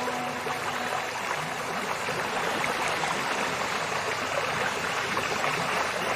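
Steady rushing of flowing river water, with a last held music note fading out in the first second.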